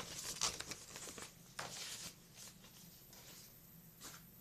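Paper tickets rustling as they are handled in the hands: a quick run of short crinkles and flicks that thins out after about two seconds.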